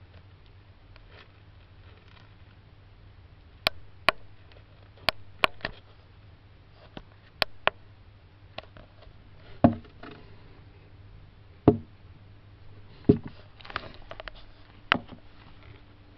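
Hermann's tortoise clambering over a ramp of wooden sticks: irregular sharp clicks and knocks of claws and shell on wood, about a dozen, starting a few seconds in, with a few heavier thumps in the second half. A steady low hum runs underneath.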